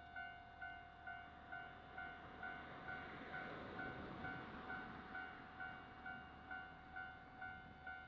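Japanese railway level-crossing alarm ringing its electronic "kan-kan" bell tone, a little over two pulses a second, while the crossing is closed. A swell of rumbling noise rises and fades about halfway through.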